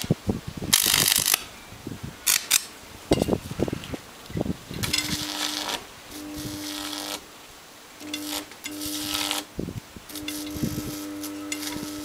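High-voltage arc from a microwave oven transformer hissing and crackling in short bursts at the end pin of a fluorescent tube. A steady mains hum from the washing-machine motor used as a series ballast comes and goes with the arc and holds steady for the last couple of seconds.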